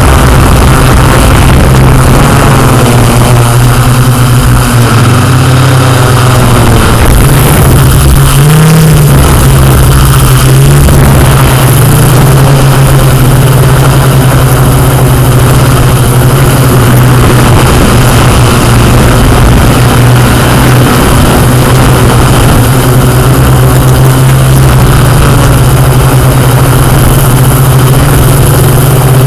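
Yuneec Q500+ quadcopter's electric motors and propellers giving a loud, steady hum while it hovers and flies, the pitch rising briefly about eight to nine seconds in.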